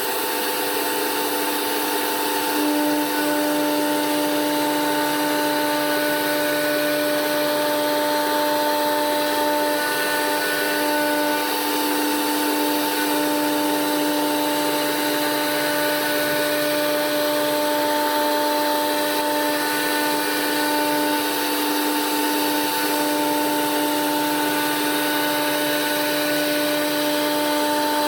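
Blue Elephant 1530 ATC CNC router running a program: the spindle whines steadily over a hiss of machine noise, with a few of the steady tones starting and stopping as the machine works.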